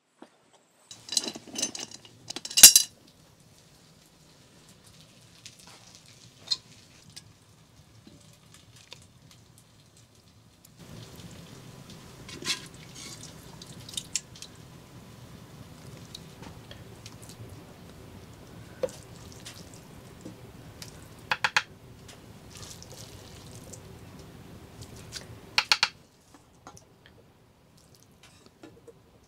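Metal cooking pot and lid being handled, with a burst of clanking clatter a couple of seconds in. Then a low steady hum, broken by a few sharp clinks of metal utensils against the pot as the food is served.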